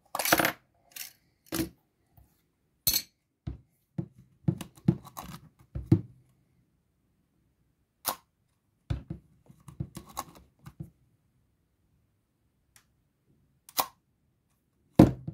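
Sharp mechanical clicks and clacks from a Kiev-4A rangefinder camera body as it is handled and its back comes off. There are about a dozen separate strokes and short clusters, the loudest right at the start and near the end.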